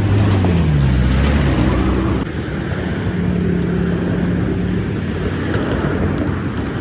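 Motor vehicle engine running, its pitch falling over the first two seconds. About two seconds in it cuts abruptly to a steadier engine hum.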